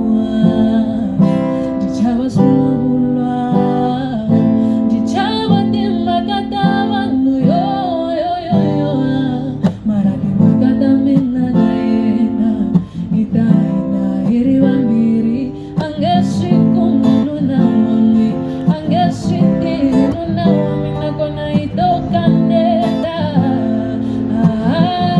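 A song playing, with plucked and strummed acoustic guitar and a singing voice.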